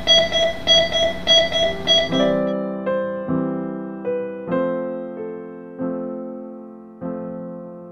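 An AED's CPR metronome beeping evenly, a little under two beeps a second, pacing chest compressions; four beeps are heard before it cuts off about two seconds in. Gentle piano background music plays from there on.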